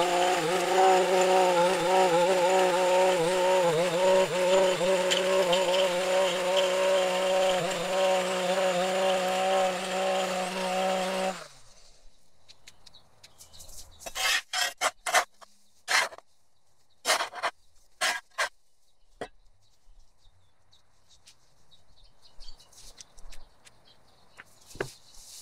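Maruyama gas stick edger's small two-stroke engine running steadily at a high pitch as the blade cuts along the curb, then shutting off about eleven seconds in. After it stops come a handful of short, sharp knocks and clacks.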